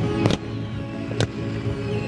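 Music with long held notes playing over a fireworks display, cut through by a few sharp firework bangs.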